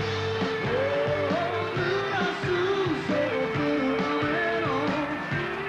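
Live rock band performance: a man sings a melody into a microphone over full band accompaniment.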